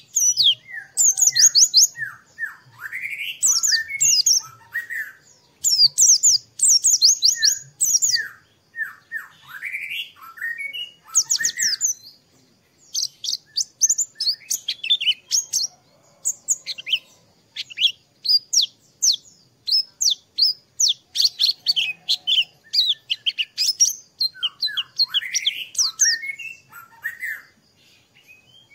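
White-eye (pleci) song: rapid, high-pitched twittering runs of quick falling notes, mixed with lower rising whistled notes, in bursts with short pauses.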